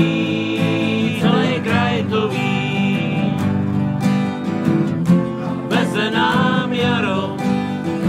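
Acoustic guitar strummed steadily to accompany a folk song, with voices singing long drawn-out phrases over it.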